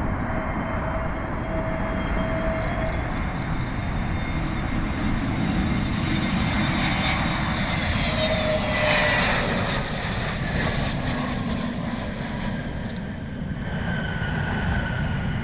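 Jet airliner passing close on approach: a steady engine rush, with the engine whine sliding down in pitch as it goes by, loudest about nine seconds in.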